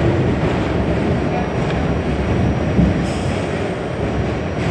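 Interior noise of a Kawasaki R68A subway car moving along a station platform: a steady rumble of the car and its wheels on the rails, with a brief hiss about three seconds in.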